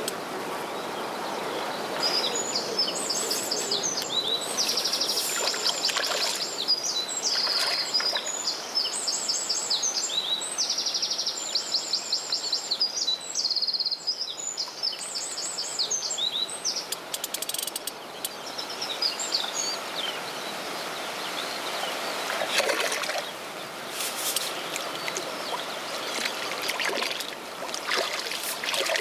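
A songbird singing a long, varied run of rapid trills and chirps from about two seconds in until past the middle, over a steady outdoor hiss. In the last few seconds there is splashing as a hooked bream thrashes at the surface.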